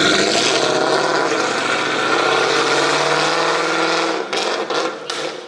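Car engine running with a steady exhaust note, then a run of sharp clicks or knocks from about four seconds in as the sound fades.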